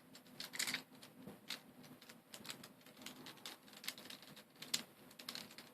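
Faint, irregular clicks and taps of small plastic V-Cube 7 puzzle pieces being handled and fitted together during reassembly.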